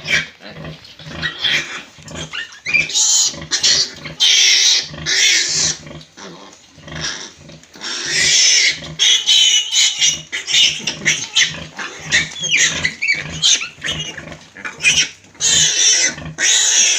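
Pigs squealing and grunting in a pen, with several loud, drawn-out high-pitched squeals among many short grunts.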